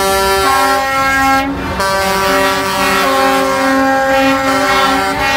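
Air horns of several concrete mixer trucks sounding together in long, overlapping held blasts, their combined chord shifting a few times, over low truck engine rumble.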